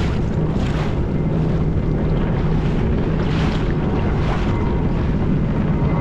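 Sea-Doo Fish Pro jet ski running steadily underway, a constant engine hum under heavy wind noise on the microphone and rushing water.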